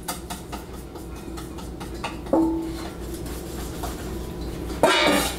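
A metal spoon tapping and clinking against a mixing bowl as baking powder is tipped into the flour: small quick clicks at first, one strike about two seconds in that leaves a short ring, and a louder clatter near the end.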